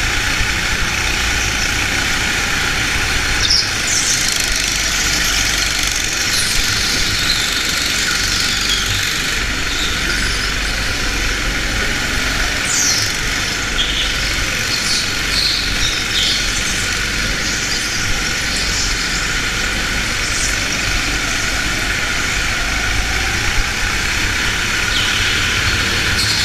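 Kart engine running steadily under race load, heard from on board, with the tyres giving short high squeals several times as the kart slides through corners on the slick indoor track surface.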